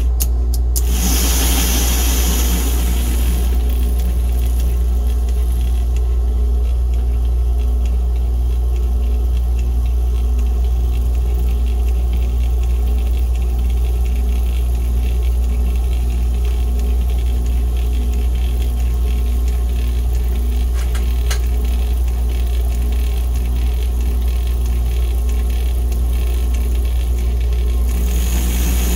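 American Flyer #300 steam locomotive's AC motor running on test power with a steady low electric hum.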